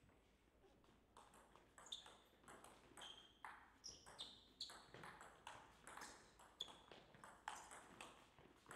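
Table tennis rally: the ball clicks sharply off the bats and the table in quick alternation, about two to three hits a second, starting about a second in.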